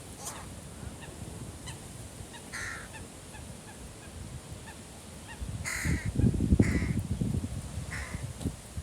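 Carrion crows giving short harsh caws, about five spread out, with a low rumble of wind on the microphone loudest about six to seven seconds in.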